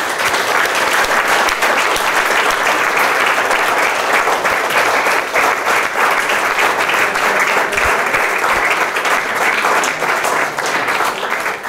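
A seated audience applauding, a dense steady patter of many hands clapping that eases slightly near the end.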